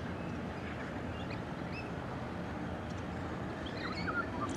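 Small birds chirping in short scattered calls over a steady low rumble.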